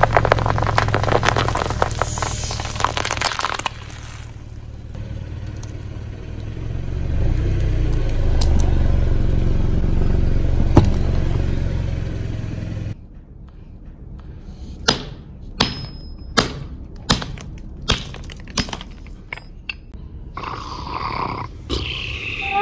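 Bubble wrap crackling and popping under a rolling car tyre, then the low rumble of the car rolling on, with a sharp crack about eleven seconds in. After a sudden drop in level, a run of sharp clicks about every three-quarters of a second, and near the end a cartoon-like sound effect with sliding pitch.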